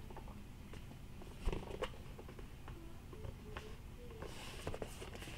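Cardboard box being turned over in the hands: faint rubbing and a few soft taps, the clearest about a second and a half in, over a low steady rumble.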